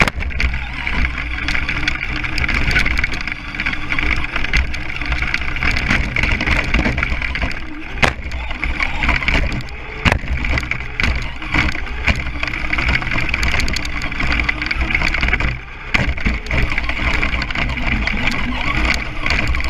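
Radio-controlled off-road car racing over a dirt track, heard from a camera mounted on the car: a continuous rough rumble and rattle, broken by sharp knocks from bumps and landings, the clearest about eight, ten and sixteen seconds in.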